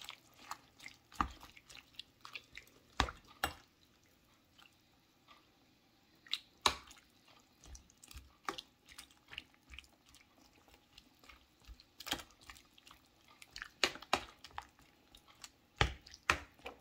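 Metal spoon knocking and scraping against a cooking pot while pressing bok choy leaves down into broth, with small wet splashes. The knocks are irregular, with a quiet stretch about four to six seconds in.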